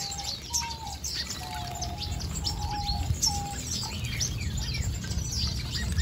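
A flock of small aviary finches chirping and twittering, many short high calls overlapping, with a few lower, level-pitched notes in the first half, over a steady low rumble.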